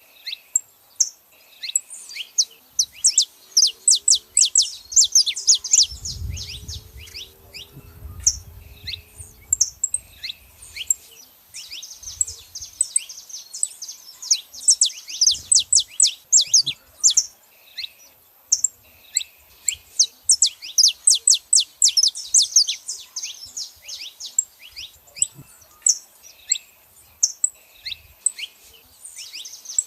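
Saffron finches calling and singing: rapid runs of sharp, high chirps in bursts, repeating after short pauses.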